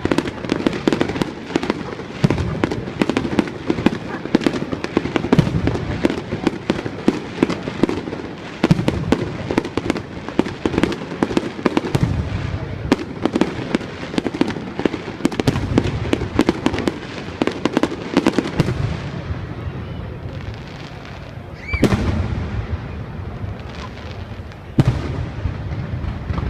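Fireworks going off in a rapid barrage of bangs and crackling that thins out about two-thirds of the way through, followed by a short whistle with a bang and a few single reports.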